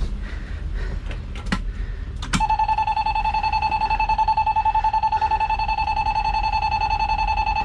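A fire truck's dashboard warning buzzer comes on with a click about two seconds in and keeps sounding as a steady, high-pitched electronic tone with a fast flutter. Before it come a couple of sharp switch clicks.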